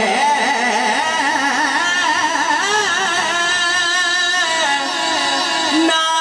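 Drawn-out melismatic singing in a devotional rubai recitation: a voice holding and bending long wavering notes, heard through a public-address sound system.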